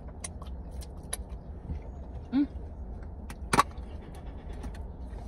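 Small clicks and taps of forks and takeaway containers as two people eat, over a low steady rumble inside a car cabin. A short hummed 'mm' comes a little over two seconds in, and a sharper click about a second later.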